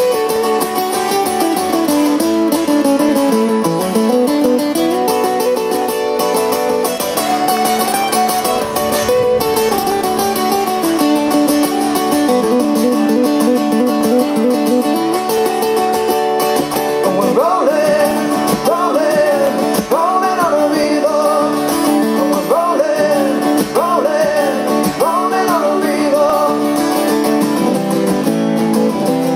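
Live music from two steel-string acoustic guitars played together, picked and strummed, amplified through a stage sound system. From a little past halfway a voice sings long, wavering lines over the guitars.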